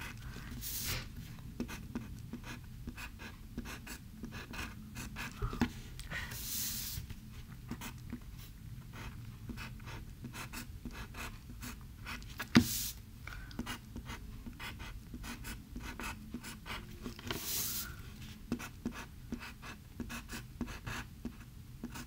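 Wooden pencil drawing on a sheet of paper: many short, quick scratching strokes as small stars are sketched, with one sharp click about halfway through.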